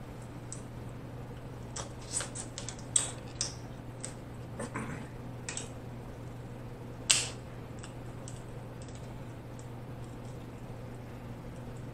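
Snow crab leg shells cracking and snapping as they are broken open by hand. There is a cluster of sharp cracks in the first few seconds, one loudest snap about seven seconds in, and a few faint ticks after it, over a steady low hum.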